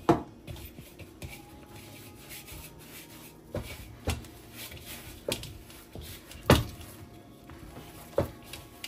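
Hands kneading cornmeal-and-flour dumpling dough, pressing and working it with about half a dozen dull thumps at irregular intervals, the loudest a little past the middle.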